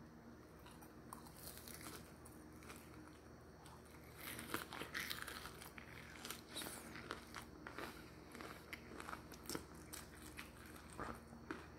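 Crisp crunching and crackling from eating a salt-and-pepper crispy fried chicken cutlet, its crumbly coating breaking, with the paper bag crinkling. Dense for a few seconds from about four seconds in, then scattered.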